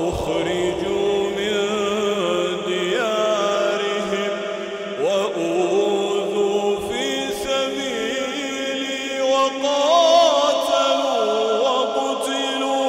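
A man chanting Quranic verses in the melodic tajweed style, holding long drawn-out notes with ornamented turns and glides in pitch.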